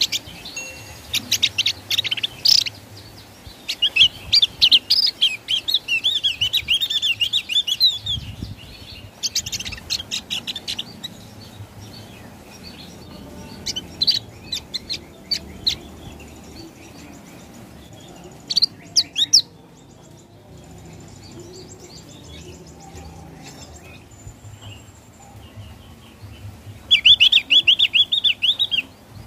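Javan grey-throated white-eye (opior jawa) singing in about six phrases of rapid, high trilled notes, separated by pauses of a few seconds.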